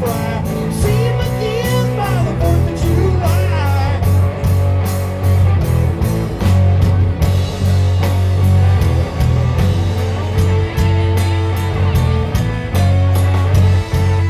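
Live rock band playing: a drum kit keeping a steady beat with cymbal hits, over a strong bass guitar line and electric guitar.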